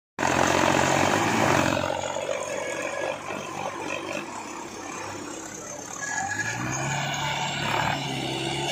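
Diesel engines of a Sonalika tractor and a Mahindra tractor working hard under load, hauling a trolley full of sugarcane out of a soft field. They are loudest in the first two seconds, and one engine revs up about six seconds in.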